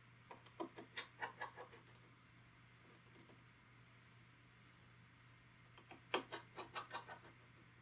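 Two quick runs of small, sharp metal clicks and taps from precision repair tools working the iPod Touch's internal metal plate and its tiny screws, the first about half a second in and the second near the end, over a faint steady hum.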